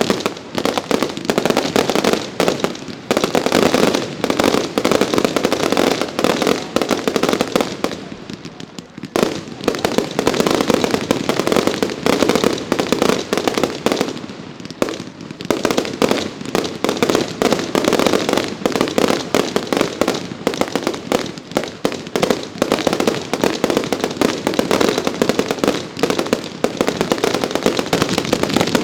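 Professional fireworks display: a dense, continuous barrage of shell bursts and crackling, with two short lulls about a third and halfway through.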